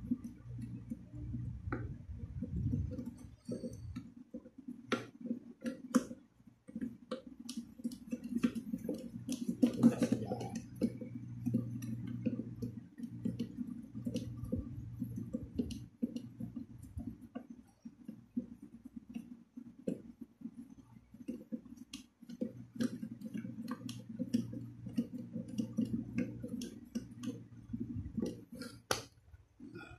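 Scattered small clicks and knocks of hard plastic being handled, from hands working at the fittings inside an empty plastic toilet cistern, over a low steady hum.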